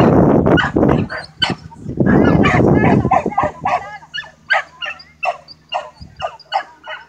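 A dog barking over and over in quick succession, about three barks a second. Two spells of loud rushing noise break in, one at the start and one about two seconds in.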